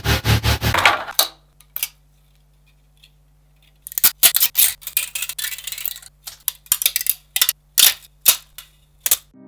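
Irregular sharp snaps and cracks of PLA plastic being broken apart by hand, over a faint steady hum. Before them, a rhythmic pulsing stops about a second in and leaves a short lull.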